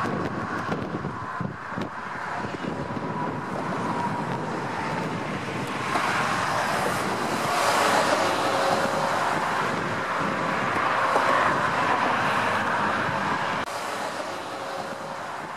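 Road traffic and engine noise swelling and fading as vehicles pass, with some wind on the microphone; the sound drops suddenly near the end.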